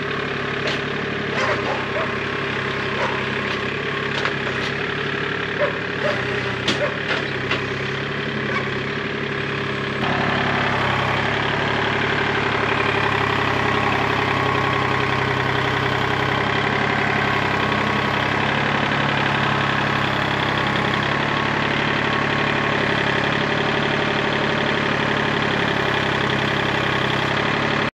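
Kubota compact tractor's diesel engine running while it moves a log on its front loader, with scattered sharp knocks and clicks in the first several seconds. About ten seconds in, the engine becomes louder and steadier.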